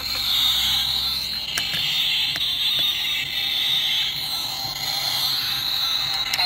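Pull-back spring motor of a die-cast toy car whirring steadily as its wheels are rolled and spin, with a few light clicks.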